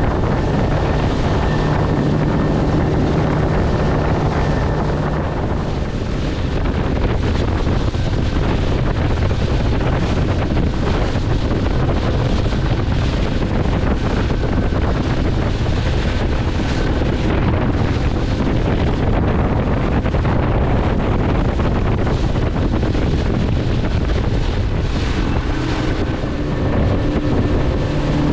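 Motorboat running at speed: a steady engine drone under heavy wind buffeting on the microphone and the rush of wake and spray along the hull. The engine's low hum stands out most clearly in the first few seconds and again near the end.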